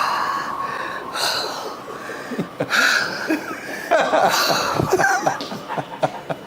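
Exaggerated heavy breathing: loud, breathy puffs, about four of them, from a woman mimicking a stretch therapist out of breath, mixed with laughter from people in the room.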